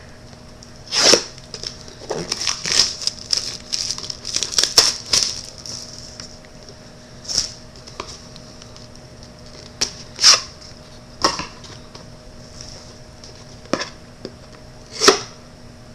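Wrapping of a sealed trading-card pack crinkling and tearing as it is handled and opened: a busy run of short rustles in the first six seconds, then occasional single crackles.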